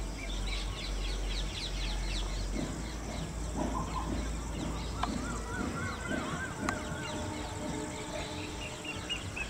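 Outdoor ambience of birds calling: a quick series of high chirps, then a warbling call, then a short run of repeated high notes near the end. A low rumble in the first half and a single sharp click about two-thirds through.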